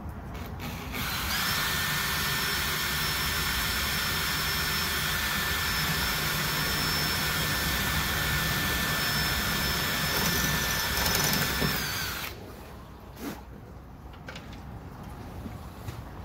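Cordless drill running steadily with a high whine for about eleven seconds, then stopping: fixing the curtain track end into the van's rear door frame. A couple of light knocks follow.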